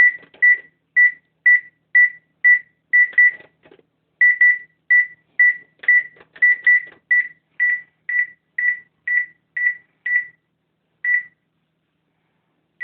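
Electronic oven beeping: short beeps of one high tone about twice a second, in an uneven pattern with some quick pairs, like Morse code. There is a longer pause near the end.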